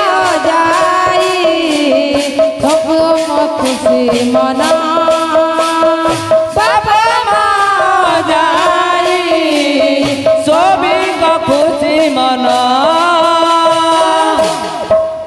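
Odia kirtan music: a woman sings a gliding melody into a microphone over a steady held note, while a hand-played barrel drum keeps up an even rhythm of strokes.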